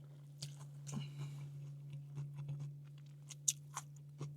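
A person chewing a mouthful of a Korean BBQ pork and vegetable bowl close to the microphone, with scattered small crunches and clicks, over a steady low hum.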